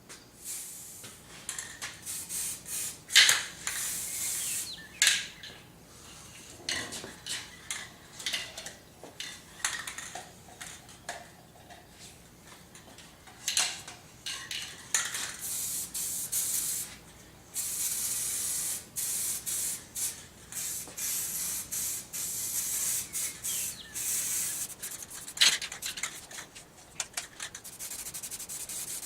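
Aerosol spray-paint can spraying in repeated passes, a hiss lasting from a second to several seconds at a time, longest a little past halfway. Short clicks and rattles come between the passes.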